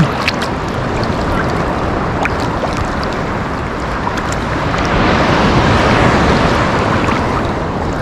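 Sea water sloshing and lapping right at a camera held at the surface by a swimmer, with scattered small splash ticks. The wash swells louder about five seconds in.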